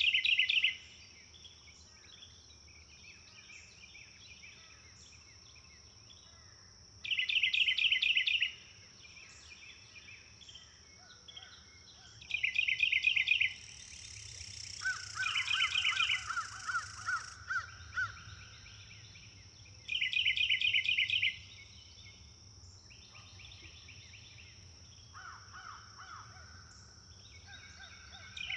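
Rainforest ambience: a steady high insect buzz underneath, with a bird's rapid trilling call repeated about every six seconds. Softer series of quick, short notes come in midway and again near the end.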